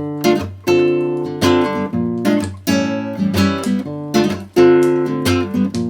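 Acoustic guitar introduction: chords strummed in a steady rhythm, each stroke struck sharply and left ringing, with a bass note under it.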